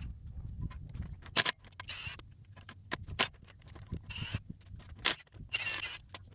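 Milwaukee cordless impact wrench in short bursts, spinning off the wheel's lug nuts, between sharp metallic clicks and clinks of the nuts and socket, about one event a second.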